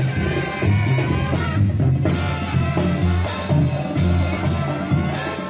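Live Mexican banda music: trumpets, trombones and tuba playing over a tambora bass drum and cymbals, with a steady beat and the tuba carrying the bass line.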